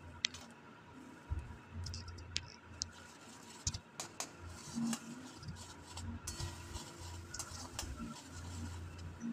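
Spice paste frying in hot oil in a metal kadai, with a metal spatula scraping and clicking against the pan as salt and turmeric are stirred in to sauté the masala.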